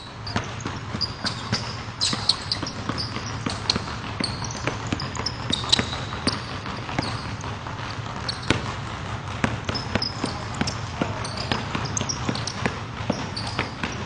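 A basketball being dribbled on a hardwood gym floor: a run of quick, uneven bounces. Now and then there is a short high squeak of sneakers on the court.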